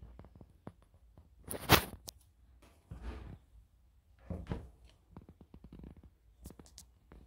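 Handling noise from a Balenciaga Triple S sneaker being picked up and turned on a tabletop: scattered light knocks and clicks with brief rustling scrapes, the loudest about a second and a half in and others near three and four and a half seconds.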